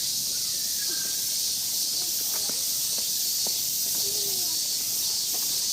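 Steady high-pitched hissing drone of a summer cicada chorus, with a few faint clicks and distant voices underneath.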